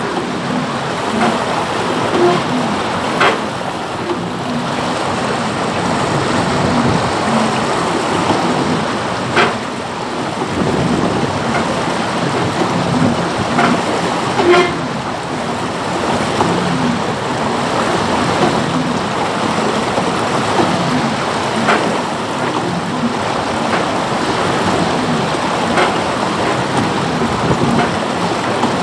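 Fast channel water rushing and splashing steadily against the hull of a 1/6-scale model barge, with a few sharp knocks scattered through.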